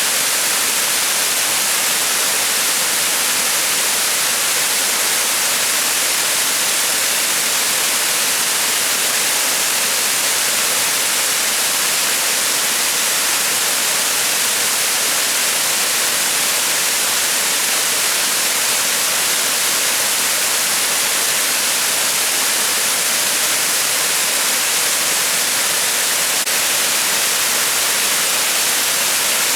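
Waterfall rushing steadily: an even, bright hiss of falling water with little deep rumble.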